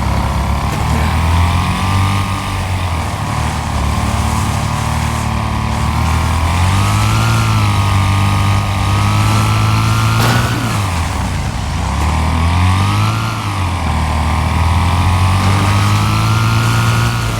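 Riding lawn mower engine running steadily, its pitch drifting up and down as its speed varies, with a brief drop and recovery about ten seconds in.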